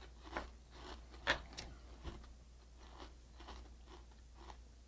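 Faint crunching of Frosted Flakes cereal being chewed, with one louder crunch a little over a second in.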